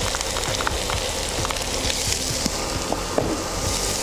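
Chopped onions sizzling in hot oil with garlic and curry leaves, just tipped into the pan, with scattered small pops.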